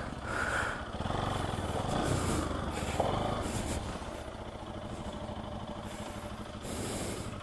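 Bajaj Pulsar NS200's single-cylinder engine running steadily at low revs while the motorcycle is ridden slowly over a slippery, muddy trail.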